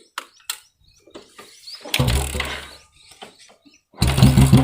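Royal Enfield Classic 350 single-cylinder engine breathing through an empty bend pipe and a short bottle silencer with no filter inside. After a few small clicks and a brief low rumble about halfway, the engine starts near the end and idles loudly with a fast, even thump.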